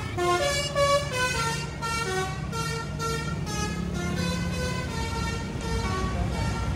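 Tour bus's Basuri telolet multi-tone horn playing a quick melody of stepped notes, over the bus engine running.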